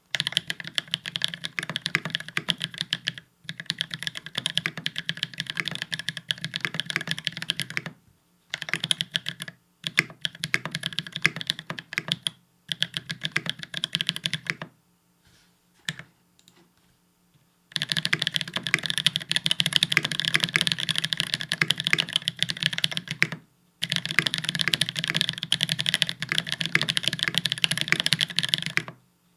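Fast typing on a Space65 R1 mechanical keyboard with Holy Panda tactile switches and GMK Apollo keycaps: dense runs of keystrokes broken by brief pauses, with a sparser, quieter lull around the middle before steady typing resumes.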